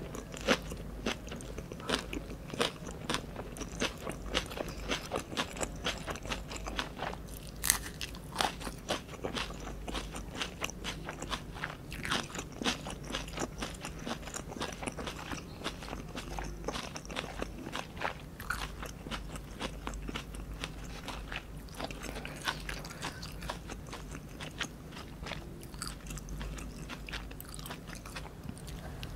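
Close-miked chewing of a Vietnamese fresh spring roll, with crisp lettuce and herbs in rice paper crunching in many small, irregular crunches and clicks.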